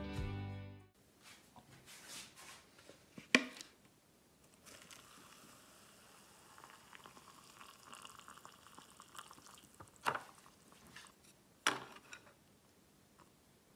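Background music fades out in the first second, leaving faint household sounds: a few sharp knocks, the loudest about three seconds in and two more later, over a soft hiss through the middle.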